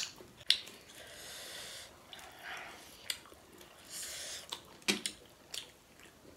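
Eating sounds: noodles slurped in a few short hissing draws, with several sharp clicks in between.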